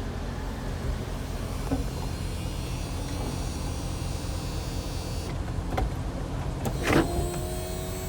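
2004 Chevrolet SSR's power retractable hardtop lowering: its electric motors whine steadily, with a click near six seconds and a louder clunk about seven seconds in, over the steady hum of the idling V8.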